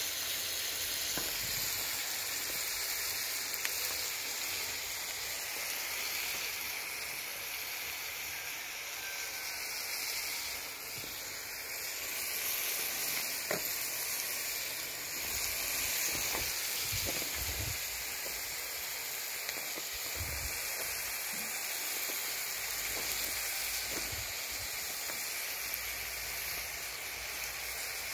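Cubes of fatty meat sizzling steadily in a large steel pan over a wood fire, an even frying hiss with occasional faint pops.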